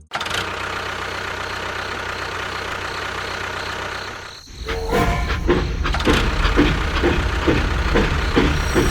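Engine running steadily. About halfway through it dips briefly, and a louder engine sound takes over with a regular beat about two to three times a second.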